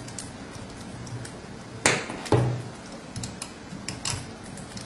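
Hex key clicking and tapping against a compound bow's cam while the cam's positioning screw is tightened. Two louder clicks come about two seconds in, half a second apart, followed by a few lighter ticks.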